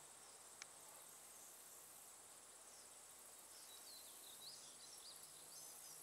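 Faint outdoor ambience: a steady high-pitched insect drone, with a few faint twittering bird notes in the second half.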